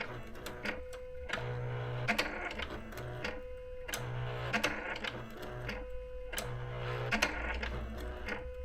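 Thermal typewriter running its correction, erasing typed characters one at a time. Each cycle brings a motor hum, a held tone and small clicks, and repeats about every two seconds.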